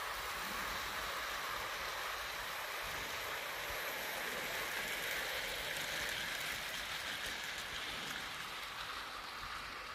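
OO gauge model trains rolling past close by on outdoor track: a steady hiss of wheels running on rail.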